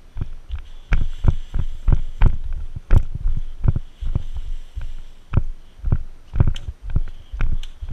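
Footsteps of a person hurrying down a dirt and gravel track, each stride a low thud picked up through a body-worn camera, about three a second, starting about a second in.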